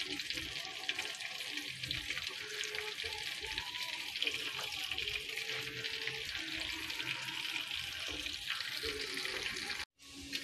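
Marinated pork pieces deep-frying in hot oil, with a steady, dense sizzle and crackle. It cuts off abruptly near the end.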